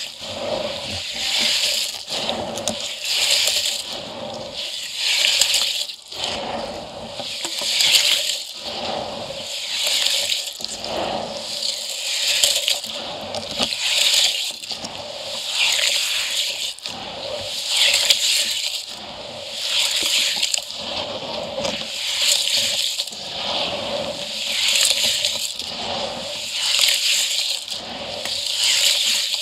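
Hands squeezing and stirring crumbled concrete in water in a steel bucket: wet squelching and sloshing of the grainy slurry, swelling and fading about every two seconds.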